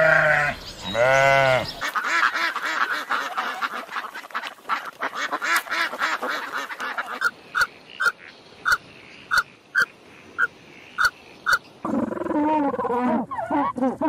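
A sheep bleats twice. Then a run of bird calls follows, ending in short, evenly spaced calls about two a second, and near the end African penguins start braying.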